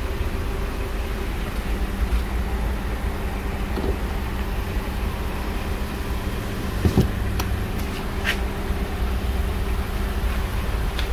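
Steady low engine hum from a car, with a few light clicks and one louder knock about seven seconds in.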